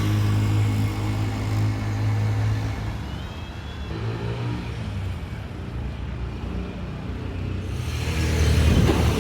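A motor vehicle's engine running steadily close by for the first few seconds, then fading, with another vehicle passing, louder, near the end.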